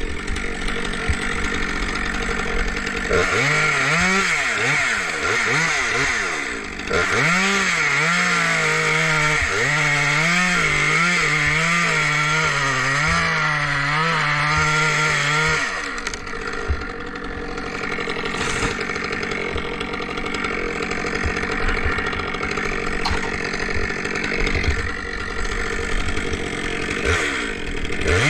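Two-stroke chainsaw running and cutting. Its engine speed rises and falls under load for much of the first half, then it runs steadier.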